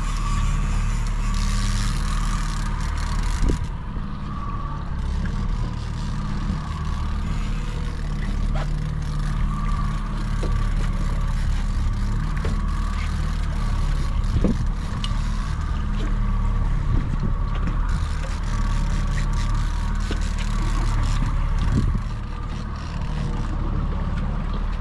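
Fishing boat's motor running steadily, with a haze of water and wind noise over it and now and then a faint knock.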